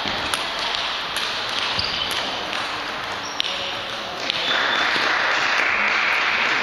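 Scattered sharp clicks of a table tennis ball on the table and bats, over the steady noise of a busy hall with several tables in play. The background noise grows louder about four and a half seconds in.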